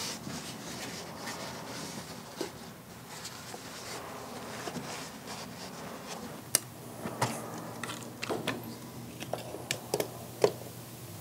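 Faint rustling and handling of a foam weatherstrip being pushed in between two window sashes, followed in the last few seconds by a scatter of light, sharp clicks and taps.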